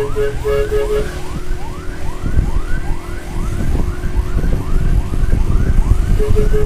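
Siren sounding a fast rising yelp that repeats about twice a second, over a heavy low rumble of wind and road noise. An on-off beeping tone runs through the first second and comes back near the end.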